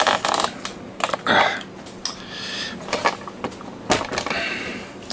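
Handling noise: a quick run of clicks, then a scrape about a second in and two sharp knocks later on, with short rustles in between.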